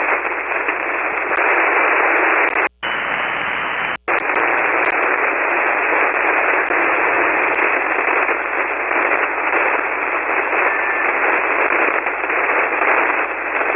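Steady hiss of band noise from a 40-metre SSB shortwave receiver, a web SDR tuned to 7.188 MHz, with no station readable above it. The hiss cuts out briefly twice, about three and four seconds in.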